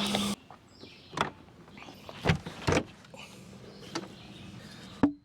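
A loud rushing sound with a steady low hum cuts off abruptly just after the start. It is followed by quiet, with a handful of short, separate knocks and clicks, like objects being handled.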